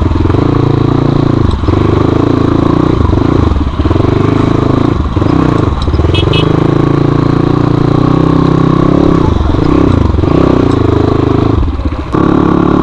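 Crossfire 250 dirt bike engine running under way, its note dipping and picking up again every second or two.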